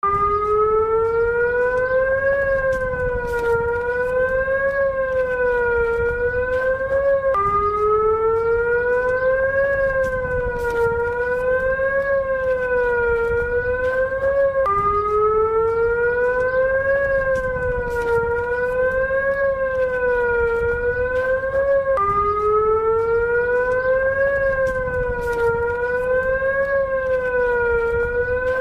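Warning siren sounding a wavering tone that rises and falls about every two and a half seconds. Each cycle climbs slightly, then drops abruptly and starts over about every seven seconds, over a low background rumble.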